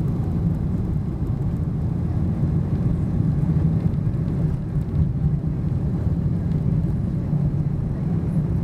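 Steady low rumble inside the passenger cabin of a Boeing 747-400 on the ground, from its four jet engines.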